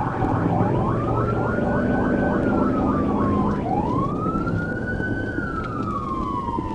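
Police car siren wailing during a pursuit, its pitch rising and falling slowly twice, with a faster chirping warble over the first half. A steady low engine and road rumble lies underneath.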